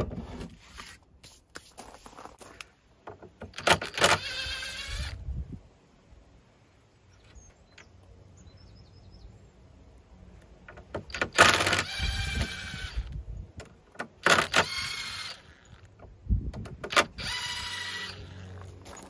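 Cordless impact driver driving screws into the edge of a door. It runs in four short bursts of about a second each, with a pitched motor whine, and there are pauses between the bursts.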